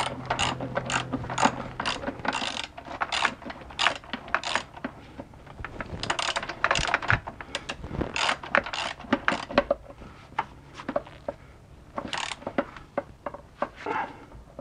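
Hand ratchet clicking in repeated strokes as a transmission-to-engine bolt is run in on a long extension, easing off briefly about ten seconds in before picking up again.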